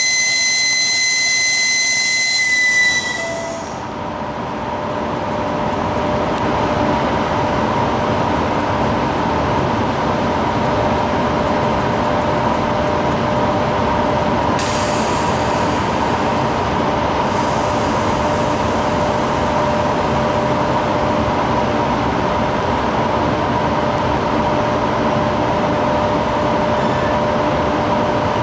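EP1M electric locomotive sounding a high whistle for about three seconds, then a steady running hum with a faint whine from the locomotive as it starts its passenger train moving.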